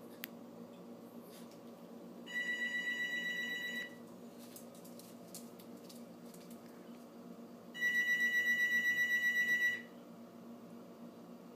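Electronic beeping: a high, rapidly pulsing tone sounding twice, first for about a second and a half, then about two seconds near the end, over a low steady hum.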